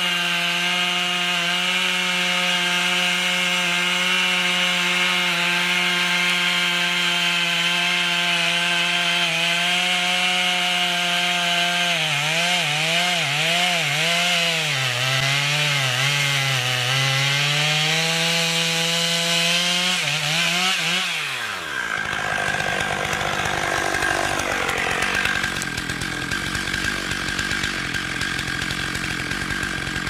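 Two-stroke chainsaw at full throttle, cutting through the trunk in a felling cut. About halfway through, its pitch wavers up and down for several seconds as the bar is worked in the wood. Then the throttle is released, the engine pitch falls steeply and the saw is left idling.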